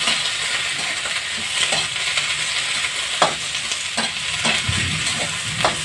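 Mixed vegetables sizzling in hot chicken oil in a metal wok as a spatula stirs and tosses them. A few sharp knocks and scrapes of the spatula against the wok stand out in the second half.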